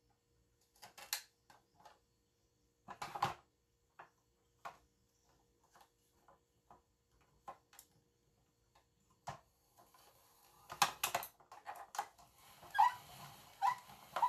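Plastic hand-crank vegetable spiralizer cutting a zucchini. First a few separate clicks and knocks as the zucchini is pressed onto the spikes, then from about ten seconds in the crank turning and the blade shaving the zucchini into spirals: a rasping with rapid clicks and a few short squeaks near the end.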